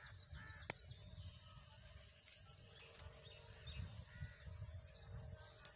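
Faint outdoor ambience: a low, uneven wind rumble on the microphone, with distant birds calling now and then and a few light clicks.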